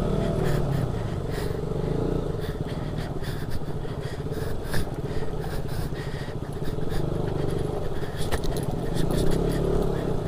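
Motorcycle engine running steadily at low speed as the bike crosses a rough, rocky water crossing, with frequent knocks and rattles from the bumps.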